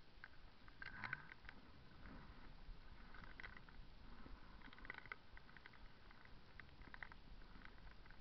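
Near silence: faint outdoor ambience with a low rumble and a few scattered faint chirps and clicks.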